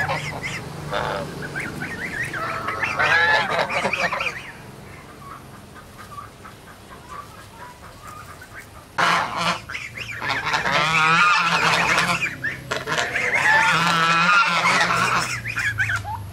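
A flock of domestic geese honking, many calls overlapping in a loud chorus. The honking eases off about four seconds in and swells again from about nine seconds on.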